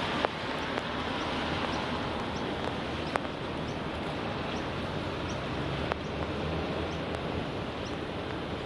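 Steady outdoor background noise of wind and distant traffic. A small bird chirps faintly and repeatedly through the middle, and there are a few sharp clicks.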